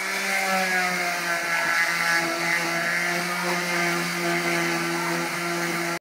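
Handheld electric power tool running steadily as it works a cedar birdhouse roof, with a continuous motor whine that dips slightly in pitch about two seconds in as it bears into the wood.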